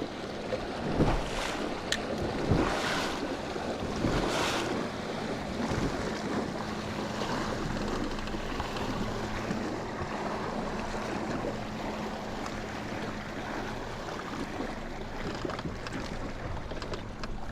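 Wind on the microphone and small waves lapping against a fishing boat's hull, steady, with a few louder gusts in the first few seconds and a faint steady hum through the middle.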